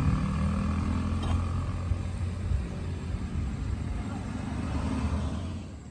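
Road traffic passing close by: motorcycle and small pickup truck engines running past, the sound dying away near the end.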